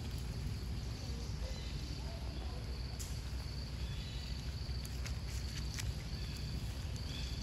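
Outdoor ambience of a steady, high-pitched insect drone over a low rumble, with a few faint, short, arching chirp calls and the odd light click.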